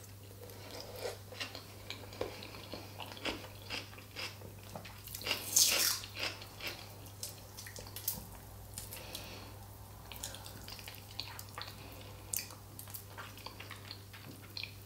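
A person chewing food with wet mouth smacks and clicks. The loudest smack comes about five and a half seconds in.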